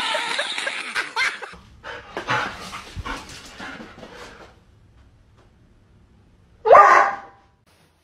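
Noisy, hissy sound for the first second and a half, then a dog barking, with one loud, sharp bark near the end.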